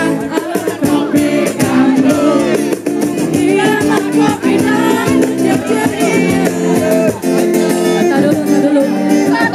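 Music with a singing voice over held chords and busy percussion.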